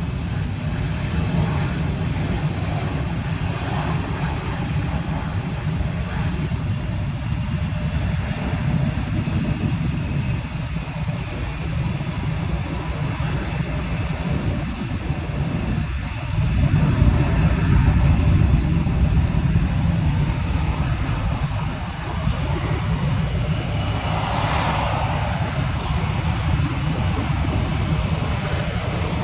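Jet engines of taxiing Blue Angels F/A-18 Super Hornets running with a steady low rumble, swelling louder about two-thirds of the way through.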